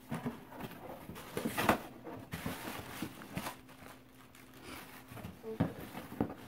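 Hands rummaging in a cardboard shipping box: irregular rustling and crinkling of the box and packing material, with a louder rustle nearly two seconds in.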